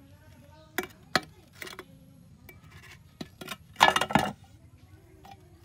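A few light metallic clinks and knocks of steel suspension parts and tools being handled on concrete, with the loudest cluster about four seconds in.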